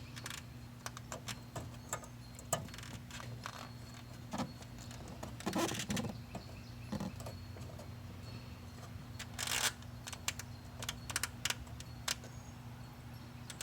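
Scattered small clicks and rattles, with a longer scraping rustle about halfway through and another about nine and a half seconds in, from hands handling parts in a car's headlight assembly after the bulb has been clamped in. A steady low hum runs underneath.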